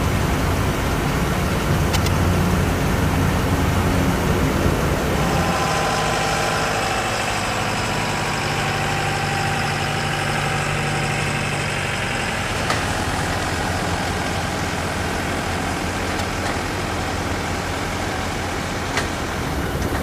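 A low engine rumble for about five seconds, then the steady whine of an MQ-4C Triton's turbofan engine running as the drone taxis, with several held tones that ease off toward the end.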